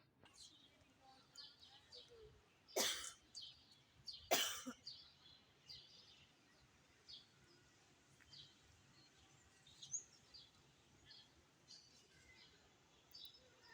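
Small birds chirping, faint short calls scattered throughout, with two loud, short bursts of noise about three and four and a half seconds in.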